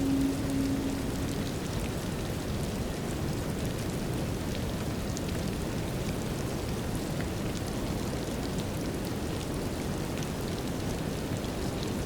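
Steady light rain with scattered small drop ticks over a deep, even brown-noise rumble. A held low tone with overtones fades out in the first second and a half.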